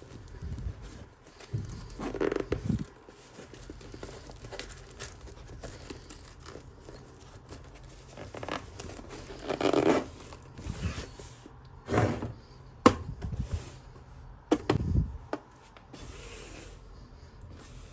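Toy packaging being handled and opened: short bursts of tearing, scraping and crinkling, with a few sharp clicks and knocks between them.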